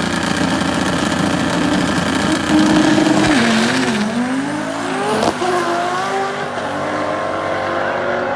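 Drag race car engines running hard down the strip. The engine pitch dips about three seconds in and then climbs steadily, as through a gear change, with a sharp click partway through, and the sound eases off a little near the end.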